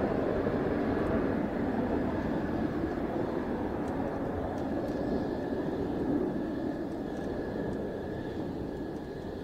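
Mitsubishi F-2 fighter's single F110 turbofan rumbling as the jet climbs away out of sight into the cloud, the sound slowly fading.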